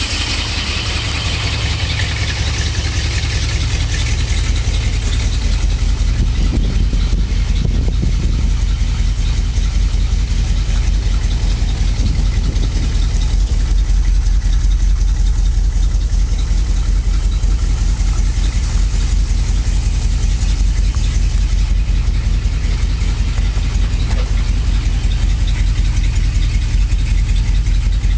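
1962 Ford Thunderbird's V8 engine idling steadily, with an even, pulsing low rumble.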